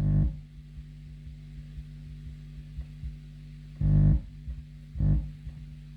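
Subwoofer driven by an amplifier with a 1 Hz test tone: a steady low buzzing hum, broken by short loud distorted blurts, one at the start and two more in the last two seconds, with faint ticks between.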